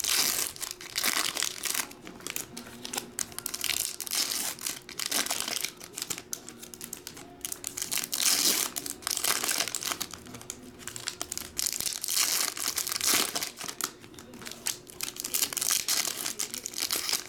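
Foil wrappers of Topps Chrome baseball card packs crinkling and tearing as they are ripped open and pulled apart by hand, with several louder rips.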